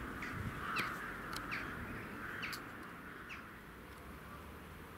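Birds calling: a series of short, separate calls, about one every half second, dying away after about three seconds over a steady background hiss.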